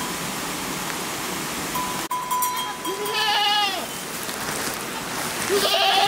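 Two long, quavering bleats from the herd of goats and sheep, one about halfway through and one near the end, over a steady rushing hiss.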